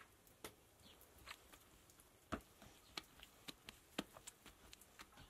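Faint, irregular taps and slaps of hands pressing and rounding a ball of tandir bread dough on a wooden board, about one or two a second.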